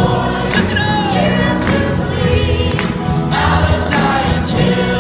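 A church worship choir of men and women singing an upbeat gospel praise song together, loud and amplified through handheld microphones.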